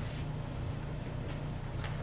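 Steady low room hum, with a faint paper rustle near the end.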